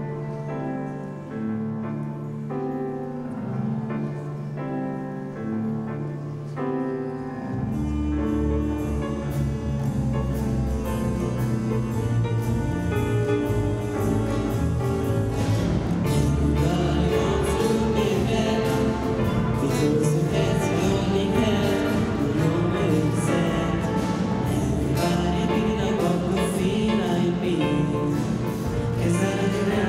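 Student orchestra playing live: held, sustained chords at first, then about seven and a half seconds in the bass and drum kit come in and the full ensemble carries on at a steady beat, louder.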